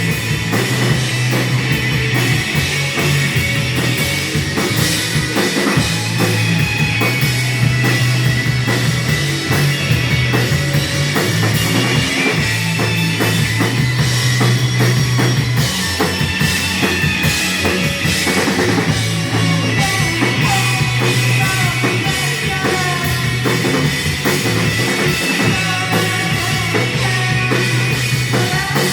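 Rock music with a steady drum-kit beat, bass and guitar.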